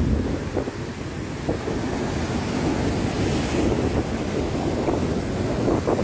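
Rough storm surf breaking on a pebble beach against a seawall: a steady, heavy wash of waves, with wind buffeting the microphone.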